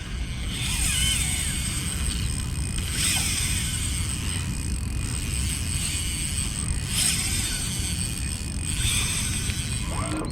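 Daiwa Freams spinning reel's drag whirring steadily as line strips off it, a big fish running hard and taking line, over a steady low rumble.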